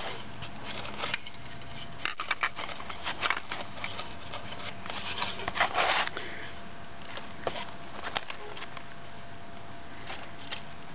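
Handling noise from a plastic crystal radio set and its wires being moved about in a cardboard box: scattered rustles and small clicks, busiest twice, about two seconds in and again about five to six seconds in.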